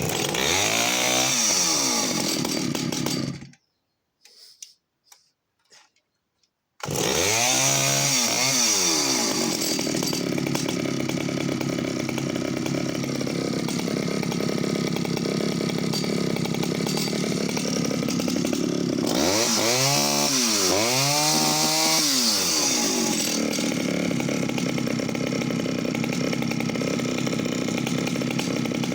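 Pioneer P25 51cc two-stroke chainsaw running with the choke off. It stops after about three seconds and is restarted about seven seconds in, revved once, settles to idle, then is revved twice more around twenty seconds in. Each time it goes straight up to full revs and straight back down to a slow idle, the sign of a well-set carburettor.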